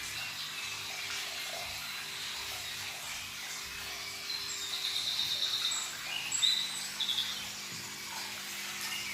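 Steady sound of running water, with a few short, high, trilled chirps standing out over it between about four and seven and a half seconds in.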